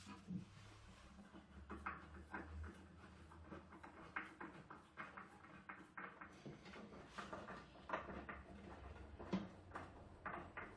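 Faint, scattered light clicks, taps and knocks of parts being handled and fitted into a wooden rack during assembly, over a low steady hum.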